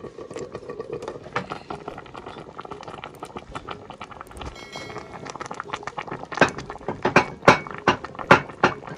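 Fish soup boiling in an uncovered aluminium pan, with soft crackling and bubbling, then a run of louder sharp pops over the last three seconds.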